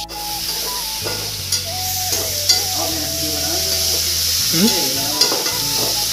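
Sliced onions sizzling steadily in oil in an aluminium kadhai, stirred with a metal spatula that clicks and scrapes against the pan a few times.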